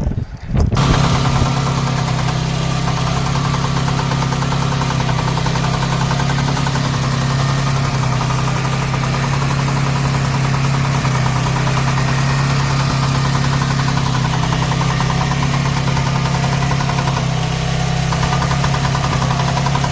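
Small engine running steadily with a fast, even vibration, cutting in abruptly about a second in.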